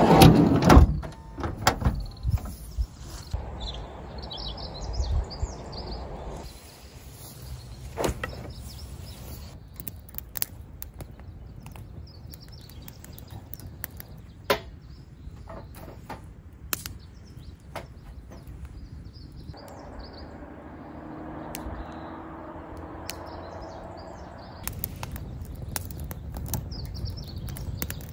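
Clicks, knocks and rustling of things being handled, loudest in the first two seconds, with birds chirping now and then.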